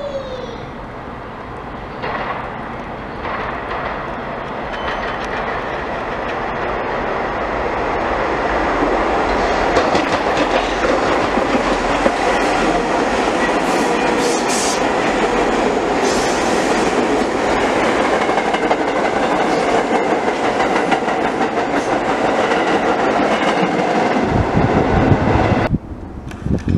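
New York City subway train on the BMT Brighton Line running past along the platform track, its wheels clicking and rumbling on the rails. The sound builds over the first several seconds, holds loud and steady, and cuts off sharply near the end.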